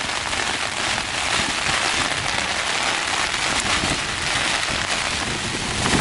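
Naturehike Cloud Peak 2 tent's fabric being battered by strong wind: a steady, dense rushing and flapping noise on the walls and flysheet. The tent is holding out.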